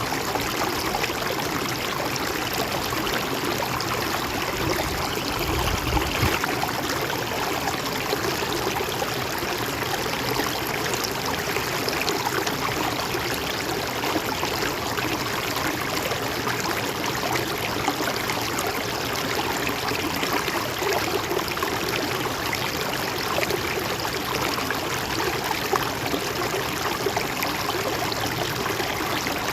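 A river or stream flowing steadily, a constant rush of water, with a brief low rumble about five seconds in.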